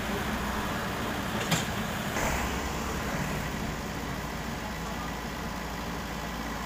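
Heavy diesel engines running steadily at low revs, with a single sharp knock about a second and a half in.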